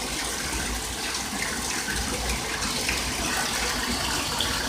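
Bathtub tap running, water pouring steadily into a tub that is still filling.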